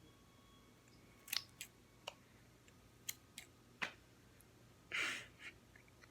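Scissors snipping into a soft squishy toy: a string of sharp blade clicks, then a brief rustling noise near the end.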